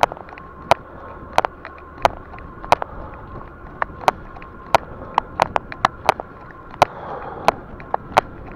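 E-bike riding along a road: a steady thin whine from its electric motor under a hum of road and wind noise, broken by loud, sharp, irregular clicks and rattles, about two or three a second.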